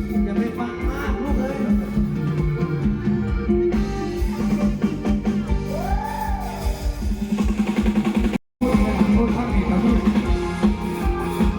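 Live band music with a steady drum beat and guitar, in a stretch between sung lines; the sound cuts out for a split second about eight and a half seconds in.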